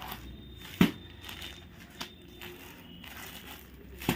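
Cloth and its wrapping rustling and crinkling as a folded suit fabric is unpacked and spread out by hand. A sharp thump about a second in, with lighter knocks near two and four seconds.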